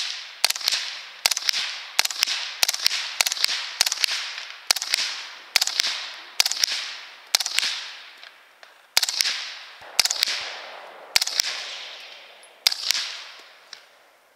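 Suppressed 9mm AR pistol with an Octane 45 suppressor firing a string of about twenty shots at an uneven pace, each crack followed by a short fading echo, with brief pauses between groups.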